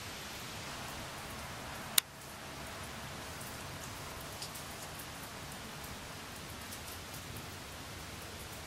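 Steady hiss of light rain with scattered faint ticks of drops, broken by one sharp click about two seconds in.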